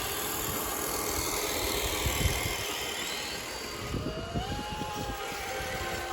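Electric motor and geared drivetrain of an RC rock-crawler truck whining as it drives, the pitch climbing about four seconds in and then holding steady, over a rough crunching rumble.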